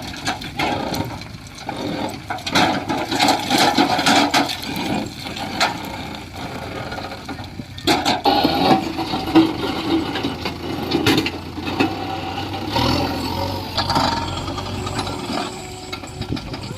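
JCB 3DX backhoe loader's diesel engine running under load, with irregular clattering and knocks of stone being handled, breaking off briefly about eight seconds in.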